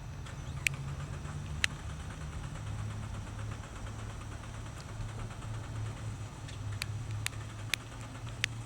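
A car engine idling with a steady low hum that settles slightly lower a few seconds in, with a handful of sharp clicks: two early on and several close together near the end.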